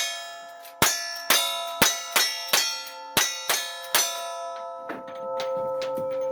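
Rapid gunfire on a cowboy action shooting stage, about eight shots in the first four seconds at roughly two a second, each answered by the clang of a hit steel target ringing on. After the last shot a single steel plate rings steadily for more than a second before the shooting resumes.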